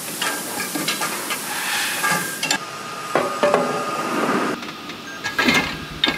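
Steel scraper shafts clinking and clattering against each other and a steel mesh rack as they are handled, with short metallic rings, over a steady hiss. The clatter is heaviest about three seconds in and again near the end.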